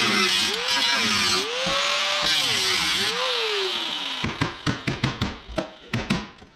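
A power tool running in a hiss of noise, its pitch rising and falling about once a second as it is loaded and eased off. About four seconds in it gives way to a quick, irregular run of sharp knocks and clicks.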